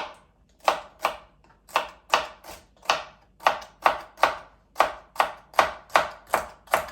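Kitchen knife chopping celery on a cutting board: a steady run of sharp chops, about two or three a second.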